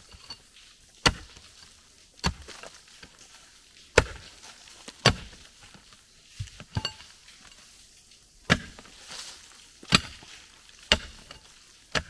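Pickaxe striking and chopping into packed dirt, about ten blows at roughly one a second, unevenly spaced. Some blows ring briefly with a metallic clink.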